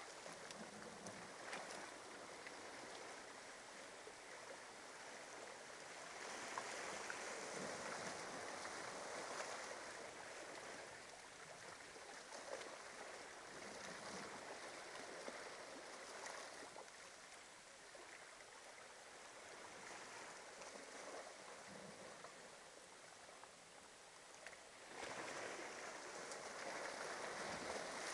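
Small waves washing onto a sandy shore, a soft steady wash that swells about six seconds in and again near the end.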